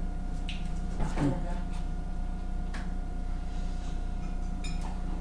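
Steady electrical hum, with a few faint clicks and a brief faint murmur about a second in.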